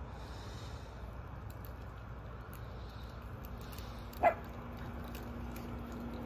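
A dog barks once, short and loud, about four seconds in, over a low steady background rumble.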